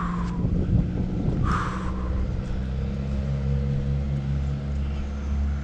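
A vehicle engine idling with a steady low hum, and a brief scrape about a second and a half in.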